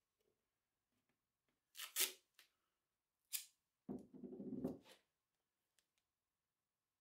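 Gaffer's tape being torn and pulled from the roll: two short ripping sounds, then a longer rasping pull about four seconds in.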